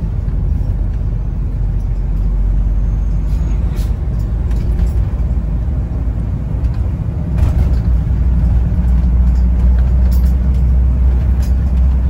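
A car being driven along a road: a steady low rumble of engine and tyres, growing somewhat louder about halfway through.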